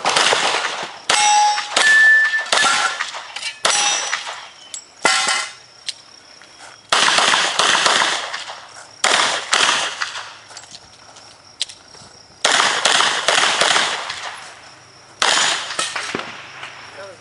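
Smith & Wesson 610 revolver firing a string of shots in quick groups, with pauses of a second or more between groups. In the first few seconds, steel targets ring with a short clang when hit.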